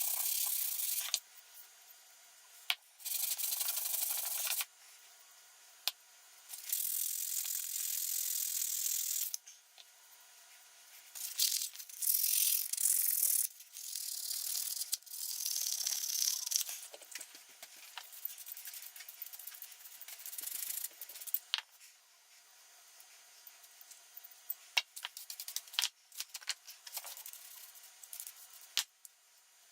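Several long rubbing strokes, each lasting one to two seconds, on an old rusty hand plane. They are followed from about halfway on by scattered light clicks and small metallic rattles as parts are handled.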